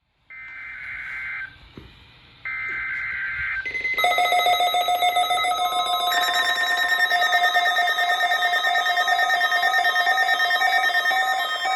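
Two bursts of SAME data tones, the warbling digital header that opens a NOAA Weather Radio Required Weekly Test, each about a second long with a second's gap. About four seconds in, a loud, steady electronic alert tone of several held pitches takes over, shifting slightly about six seconds in.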